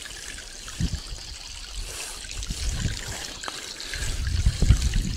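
Water from a sump pump hose pouring into a 6-inch PVC piling, with a steady trickling and splashing, as the pipe is jetted down into the lake bottom. A few low thumps come near one second in and again, louder, about four seconds in.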